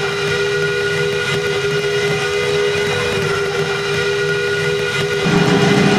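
Ice-hockey arena goal horn blowing one long, steady blast. About five seconds in, the goal song starts.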